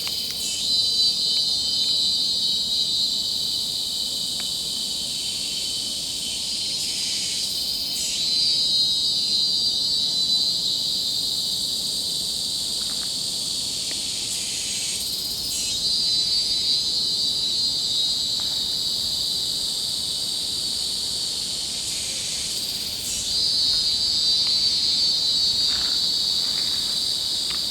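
Dense chorus of tropical forest insects: a steady, high-pitched shrill buzzing that shifts a little in pitch and loudness three times.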